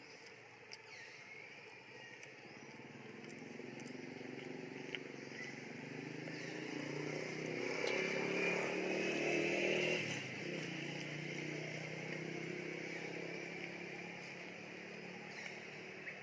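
A motor vehicle passing: its engine hum swells over several seconds, is loudest about eight to ten seconds in, then drops and slowly fades.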